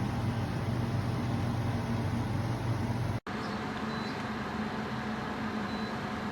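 Portable air conditioner running with a steady hum and fan noise. About three seconds in the sound drops out for an instant, and afterwards the hum goes on at a slightly different pitch.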